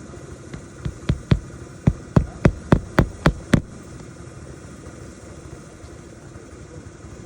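Hammer striking a roofing nail about eleven times in quick succession, roughly three blows a second and getting harder, driving the nail that fastens a replacement shingle.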